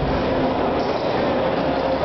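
Steady hubbub of a crowded exhibition hall: many voices and hall noise blending into one constant din, with no single sound standing out.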